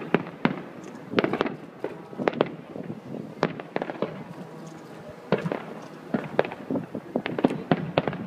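Aerial fireworks shells bursting overhead: a rapid, uneven series of sharp bangs and cracks, some in quick clusters.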